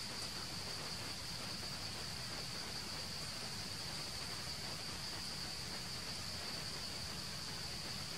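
Steady, high-pitched drone of insects in the forest over a soft, even hiss, unchanging throughout.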